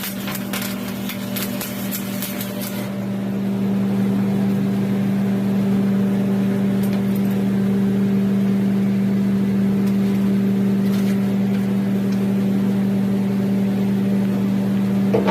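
Arc welding crackle for the first three seconds or so, over a steady electrical machine hum that then grows louder and runs on evenly.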